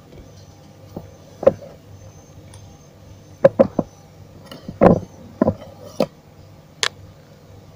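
Irregular sharp clicks and taps of a soldering iron and fingers against a CRT TV's circuit board during resoldering of cracked solder joints, about nine in all, in small clusters, over a steady low hum.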